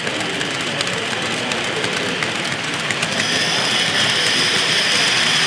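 Miniature 030 steam tank locomotive running on a model railway layout: a steady running noise with small scattered clicks. About three seconds in, a high steady whine joins.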